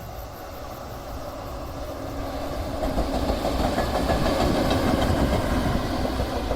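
A train running past on the track, its rumble and wheel-on-rail noise growing as it approaches, loudest about four to five seconds in, then easing slightly.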